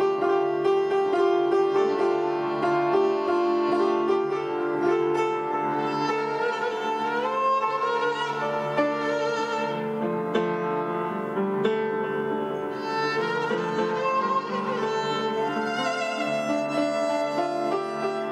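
Live duet of violin and upright piano: the piano sustains chords under bowed violin lines, with the violin sliding up in pitch a couple of times.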